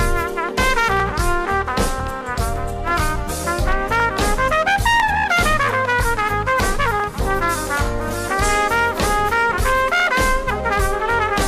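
Live smooth jazz: a trumpet plays a melodic solo line over a band with drum kit, bass and keyboards, with a phrase that climbs and falls back in the middle.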